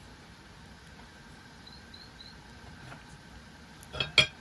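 Wood fire crackling: two sharp pops in quick succession near the end, over faint high chirping in the background.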